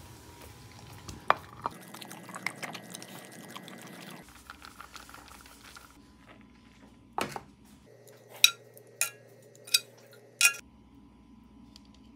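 Kitchen utensils and dishes clattering: scattered light clicks and taps, a loud clack about seven seconds in, then four sharp metallic clanks, each with a brief ring.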